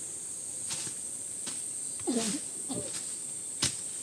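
Steady high-pitched insect drone, with a few sharp taps or knocks and two short pitched animal calls about two seconds in.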